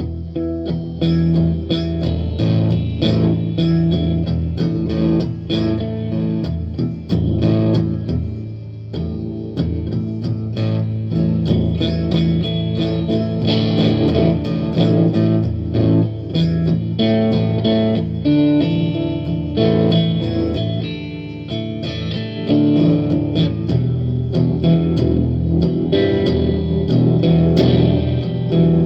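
Gretsch electric guitar played without a break: a steady run of plucked notes, strongest in the low and middle register.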